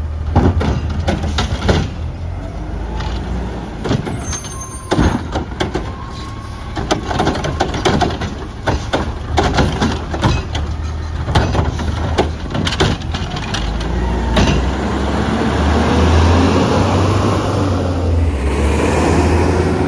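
Garbage truck's diesel engine running steadily under many irregular knocks and clatters. In the last few seconds a louder rushing noise builds up.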